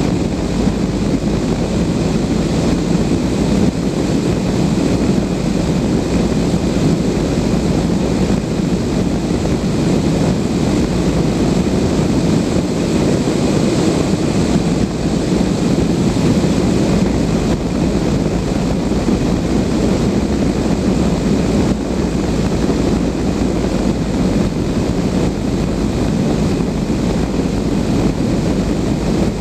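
Steady rushing airflow and wind on the microphone inside a Blanik L-13 glider's cockpit in flight, loud and unbroken.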